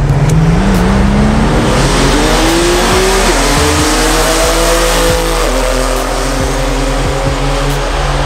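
Two cars at full throttle in a roll race, a Nissan GT-R and an open-wheel car, the engine note climbing steeply, dropping at a gear change about three seconds in, climbing again, then levelling off as the cars pull away.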